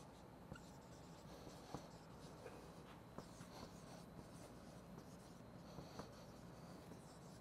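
Faint scratching of a marker writing on a whiteboard, in short strokes with a few light ticks.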